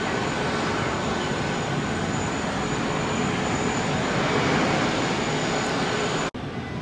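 Boeing 747 freighter's jet engines during the landing roll-out just after touchdown: a loud, steady rush that swells a little midway, then cuts off abruptly near the end.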